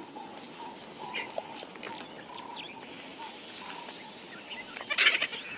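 Vultures squabbling over a carcass: a few short, faint calls, then one louder harsh call near the end.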